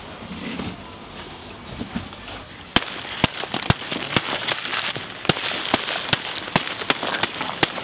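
A baked yellow-mud crust on a clay-roasted chicken being broken open: sharp, irregular knocks over a steady crackle of dry clay crumbling and foil and paper crinkling, starting about three seconds in.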